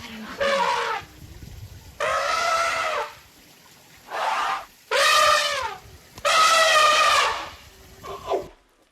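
A farm animal calling over and over: about six long, drawn-out, wavering calls of roughly a second each, with short pauses between them.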